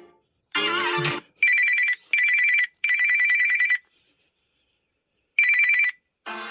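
Samsung Galaxy S23 stock ringtones playing. A short melodic phrase is followed by a trilling, rapidly pulsing two-tone telephone-style ring in three bursts, a pause, and a fourth burst. A new musical ringtone begins near the end.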